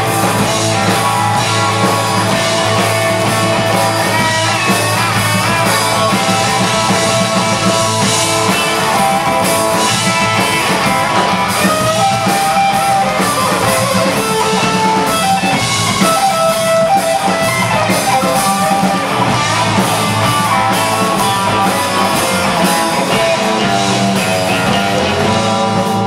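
Live rockabilly trio playing without vocals: electric guitar lines over electric bass and a drum kit.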